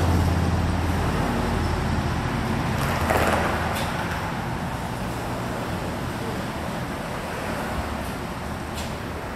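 Betts vertical turret lathe running with its large table turning: a steady low machine hum and rumble, with a broad swell about three seconds in, slowly getting quieter.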